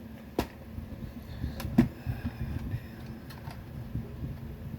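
Clicks and knocks of plastic parts as a shell is loaded into the chamber of a toy M32 grenade launcher. The loudest click comes a little under two seconds in.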